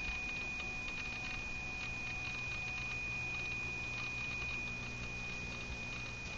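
Macintosh PowerBook 190cs's internal hard drive running: a steady high whine over a low hum, with faint scattered clicks of the heads seeking. This is the crunching of an old, noisy laptop drive.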